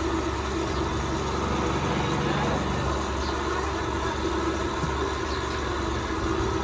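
Steady street traffic noise with vehicle engines running.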